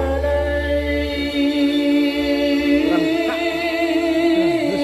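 Music played loud through a tall outdoor speaker stack during a sound check. A sung melody carries long, wavering held notes over deep bass, and the bass drops away about a second in.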